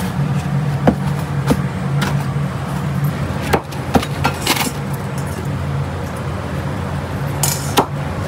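Hawker centre ambience: a steady low hum with scattered sharp clinks and knocks of crockery and utensils.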